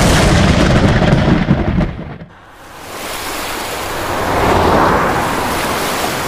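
Thunderstorm sound effect: thunder rumbling with rain for about two seconds, which dies away. Then a rush of rain noise swells, peaks midway and slowly eases off.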